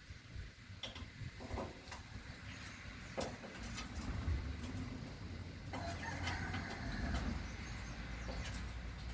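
Wind buffeting the microphone with a steady low rumble, with trees rustling and scattered short clicks; a brief rush of higher noise comes in about six seconds in.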